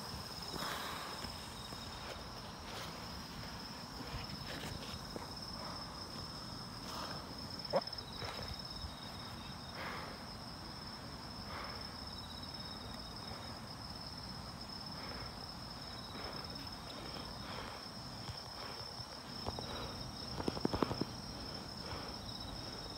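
Night insects trilling steadily in one continuous high-pitched tone. Occasional soft knocks and rustles close to the microphone, with a short cluster of louder ones near the end.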